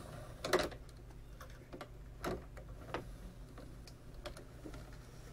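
Irregular light clicks and taps of the plastic CD tray drawer of an Arcam Alpha 6 CD player being handled by hand.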